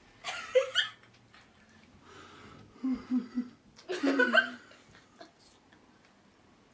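A person laughing softly in a few short, breathy bursts, with three quick chuckles about three seconds in.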